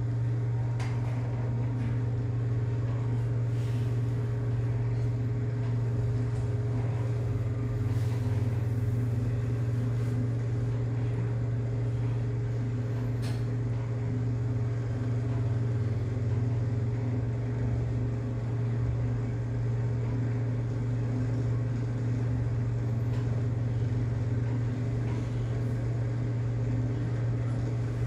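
A passenger lift car travelling down its shaft at running speed: a steady low hum and rumble of the moving car, with a few faint ticks.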